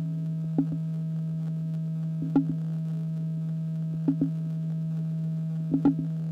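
Experimental electroacoustic music: a steady low pure tone held under a fainter higher tone, broken by a few short sharp clicks scattered through.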